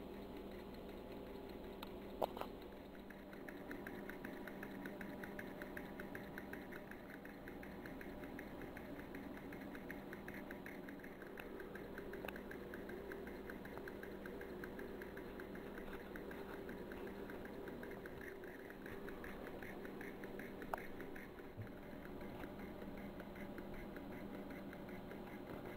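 Small low-temperature-difference Stirling engine from a Gakken Otona no Kagaku kit, running on a cup of hot water, its mechanism ticking faintly, quickly and evenly. A couple of single clicks stand out, about two seconds in and near the end.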